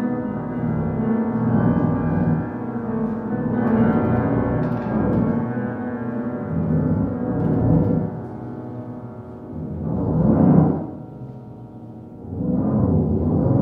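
Upright piano notes stretched by live electronics into a sustained, layered drone, the pianist's arm-muscle and arm-movement sensors shaping the sound after the keys are struck. Two loud swells rise and fall in the last few seconds.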